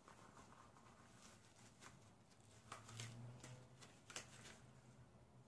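Yellow rubber gloves being pulled on and worked over the hands: a few faint, short rubbery rustles and small snaps over a faint low hum.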